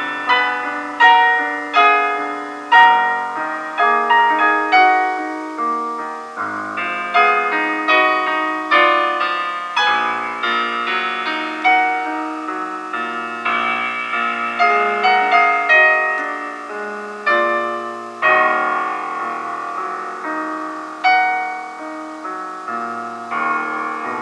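Solo piano playing a classical piece: a continuous run of notes and chords with repeated accented attacks, and no pause.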